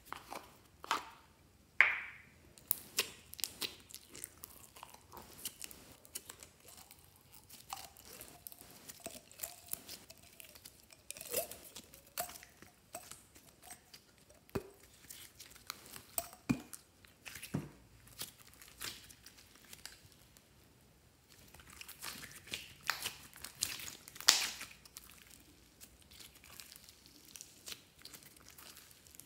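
Store-bought green slime being squeezed, pulled and kneaded by hand: sticky squishing with scattered crackling pops and clicks, the sharpest about two seconds in and again near the end.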